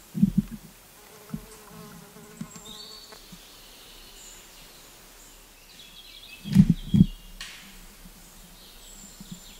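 A flying insect buzzing close by, twice: a brief loud buzz right at the start and another about six and a half seconds in, each lasting well under a second.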